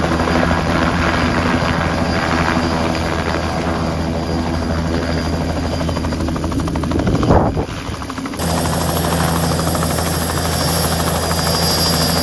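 Bell 206 JetRanger helicopter hovering low, its rotor beat and turbine whine running steadily. About seven seconds in, a burst of wind noise buffets the microphone, then the same steady rotor and turbine sound carries on.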